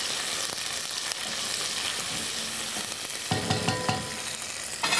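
Tomato paste and small onions sizzling in butter in a pot while being stirred. About three seconds in a spoon knocks and clinks against the pot a few times, and there is one sharp knock near the end.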